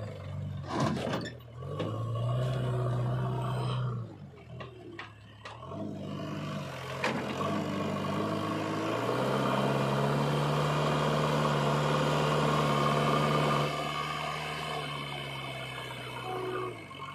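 JCB 3DX backhoe loader's diesel engine revving under load as its front bucket pushes soil, rising and falling, then held high for several seconds before dropping back. About a second in there is a brief clatter as a bucketful of soil drops into the tractor trolley.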